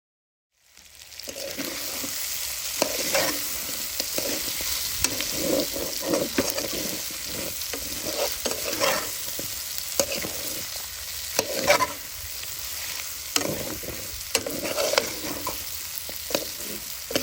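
Duck pieces frying in hot oil in a pot, sizzling steadily, while a utensil scrapes and knocks against the pot as they are stirred. It starts suddenly about a second in.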